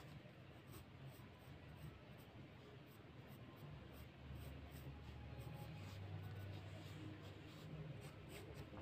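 Graphite pencil scratching faintly on drawing paper in many short, light strokes, over a low steady hum.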